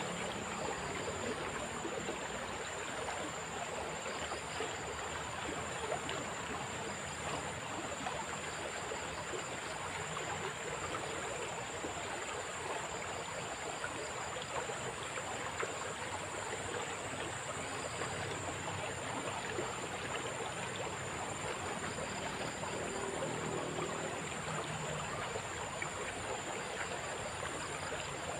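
Swift river water rushing steadily over stones, with a thin, steady high-pitched tone running above it.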